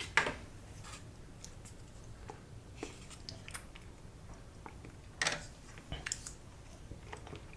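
A person chewing a mouthful of sushi, close to the microphone: scattered short wet smacks and clicks, with a louder one just after the start and a few more about five to six seconds in.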